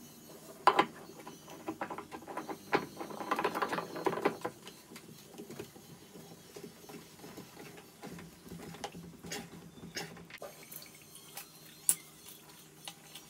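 Handling noise: scattered light clicks and rubbing, with a busier stretch of rustling about three seconds in and a sharp click near the end.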